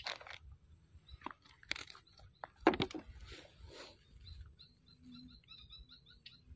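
Handling knocks and rustles on the straw-covered bank, the loudest about two and a half seconds in, followed by a bird chirping in a quick series of short high notes. A thin steady high whine runs underneath.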